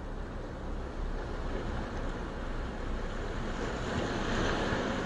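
Surf washing on a sandy beach: an even rush of noise that swells to its loudest about four seconds in.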